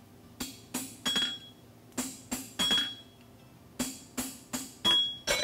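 Hammer blows on a hand-held forging tool set against a red-hot steel horseshoe on an anvil. About eleven sharp metallic strikes come in quick groups of about three, some ringing briefly.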